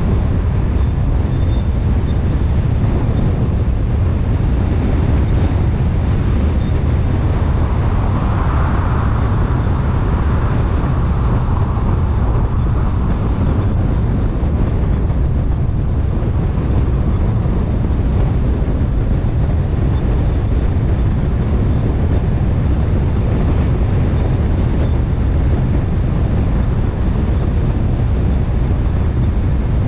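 Steady rumble of road and wind noise from a car driving on a motorway. A slightly brighter hiss swells briefly about eight seconds in.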